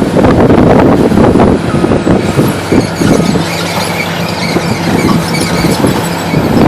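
Excavator running, its diesel engine a steady low drone. From about two and a half seconds in, a high squeal sits over it.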